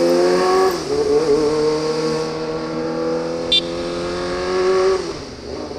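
Kawasaki ZX25R's 250 cc inline-four accelerating through an Austin Racing aftermarket exhaust. The revs climb, dip briefly for an upshift about a second in, climb steadily again for about four seconds, then fall off as the throttle closes near the end.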